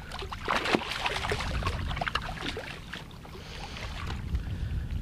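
Water splashing and sloshing as a hooked grass emperor is scooped into a landing net beside a kayak, with clicks and knocks from the net and gear against the hull. The handling is thickest in the first three seconds, then it eases off.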